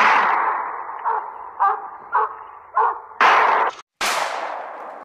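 Gunshots from a hunting gun: a loud shot right at the start with a long rolling echo, four fainter reports about half a second apart, then two more loud shots near the end, the last one cutting in abruptly after a brief gap.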